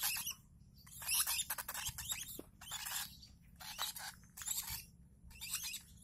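One-month-old lovebird chicks giving repeated raspy, high-pitched begging calls, short bursts about once a second, the sound of chicks being fed.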